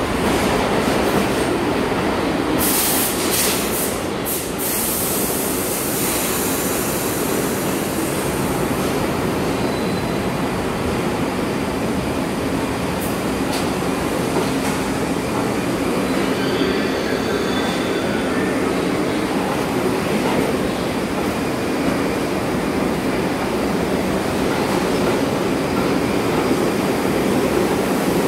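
R62A subway train rolling along a station platform: a continuous rumble of steel wheels on rail, with a cluster of sharp high crackles about three to four seconds in and a few faint, brief high wheel squeals later on.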